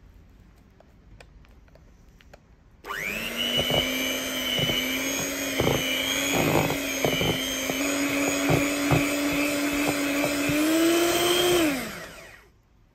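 Electric hand mixer switching on about three seconds in and running steadily as its wire beaters cream butter and sugar in a stainless steel bowl, with scattered sharp knocks of the beaters against the bowl. The motor's pitch steps up slightly twice, then it winds down near the end.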